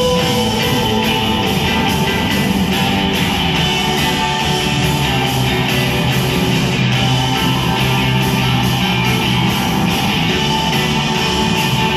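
A live rock band playing loud: electric guitars, bass, keyboards and drums, heard from the audience.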